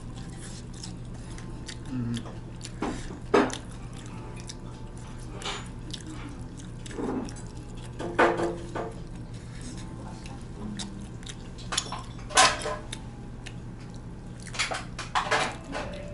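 Table sounds of eating fried chicken by hand: scattered short clicks and knocks of a ceramic plate and utensils as pieces are picked up and put down, the loudest about a third of the way in and again near three-quarters. A steady low hum runs underneath.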